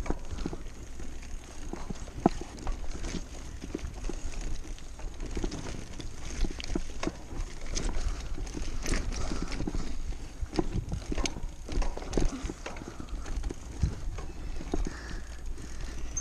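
Mountain bike clattering and rattling over a bumpy dirt trail, a steady run of irregular knocks and rattles, with low wind rumble on the microphone.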